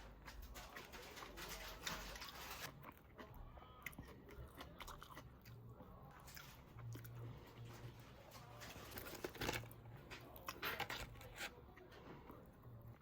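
A person biting and chewing crunchy food: irregular crackling crunches, with a few louder bites about two-thirds of the way through.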